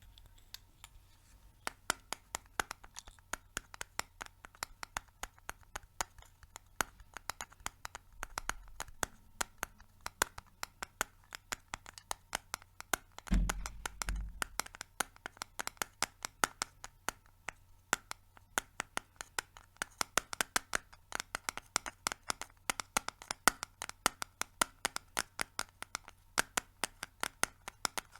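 Fingernails tapping on a hard surface in quick, irregular clicks, several a second, after a quiet first couple of seconds. A dull low bump comes about halfway through.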